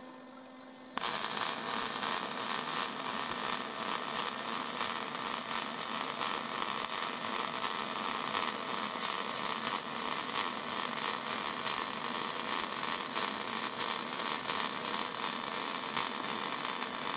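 MIG welding arc crackling steadily as a bead is run across a gapped seam in a steel panel with .035 wire at turned-down voltage, starting about a second in.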